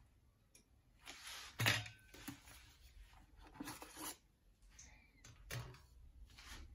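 Dry papads and their plastic bag rustling and crackling as a papad is handled with wooden tongs, with a few sharp knocks, the loudest about a second and a half in.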